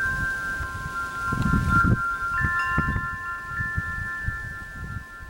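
Metal wind chimes ringing with several overlapping tones, struck afresh a little over two seconds in, over low gusts of wind noise on the microphone.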